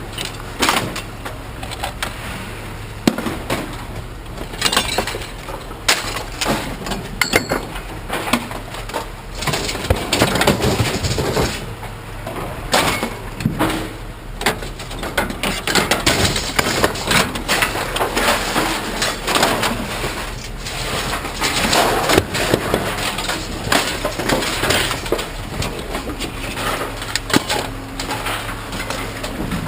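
Scrap metal and junk being unloaded by hand and tossed onto a pile: irregular clanks, crashes and rattles of metal striking metal, over a steady low hum.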